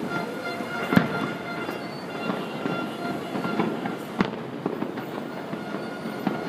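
Fireworks going off, with two sharp bangs about a second in and about four seconds in, over the steady din of a jammed street where car horns are held.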